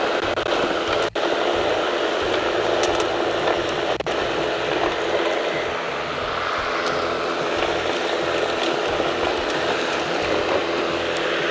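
Ryobi 20-inch brushless battery lawn mower running steadily with its deck at the lowest setting. The blade is spinning just above bare concrete, sweeping clippings off it.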